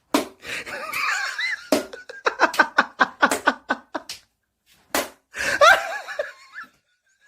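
Laughter in rhythmic bursts, broken by a few sharp slaps.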